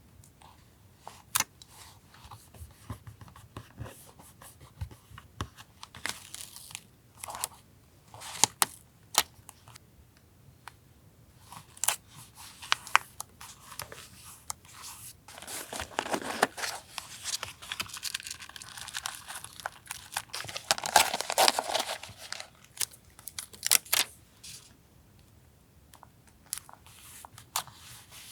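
Paper being handled for a collage journal: scattered taps and short rustles, then a longer stretch of paper tearing and crinkling in the second half.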